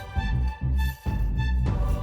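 Background music with a heavy, pulsing bass beat and sustained high notes held above it.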